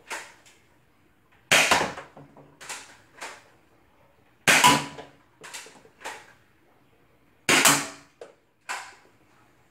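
Spring-powered Nerf Rival Knockout blaster, converted to fire half darts from an inline clip, shooting three times about three seconds apart. Each shot is a sharp pop followed by a couple of lighter clicks and clacks.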